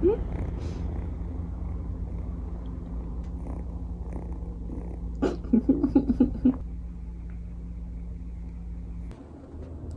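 A ten-week-old kitten purring steadily close to the microphone, with a short run of louder pulsed sounds about five seconds in. The purring stops abruptly near the end.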